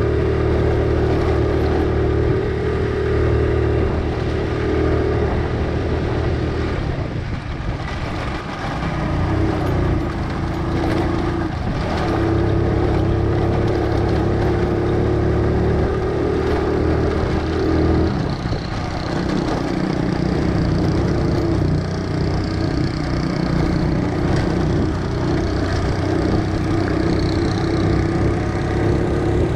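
Honda CD70 motorcycle's small single-cylinder four-stroke engine pulling under load up a long climb. The note holds steady, dips briefly about a quarter of the way in, and shifts again a little past halfway.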